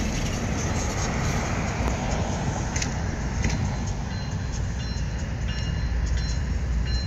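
Approaching CSX freight train heard from a distance as a steady low rumble, with faint high ticks over it.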